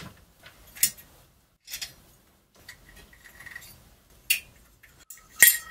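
A few small metal clinks and taps as stainless steel head nuts are handled and threaded onto the cylinder head studs; the loudest clink comes near the end and rings briefly.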